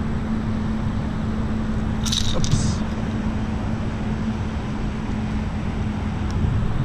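Steady outdoor rumble with a low, steady hum, and a brief scraping rattle about two seconds in.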